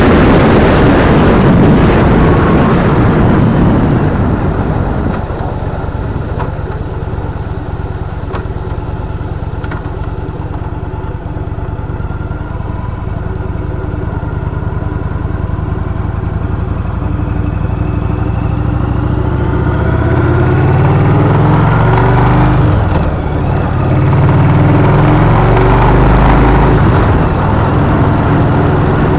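A vehicle driving on an open road. Heavy rushing wind and road noise eases within the first few seconds as it slows. The engine note then rises steadily as it speeds up again, with a brief dip about two-thirds of the way through.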